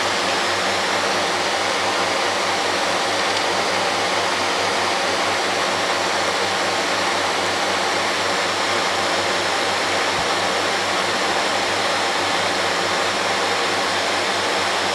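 Steady rushing water noise with a low hum underneath, from a reef aquarium's pumps and water circulation.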